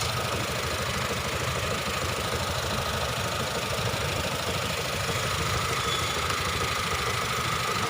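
Honda Civic petrol engine idling steadily with a fast, even pulsing. Its MAP sensor signal wire to the ECM is broken, which logs a MAP sensor code and is the cause of the car's misfire complaint.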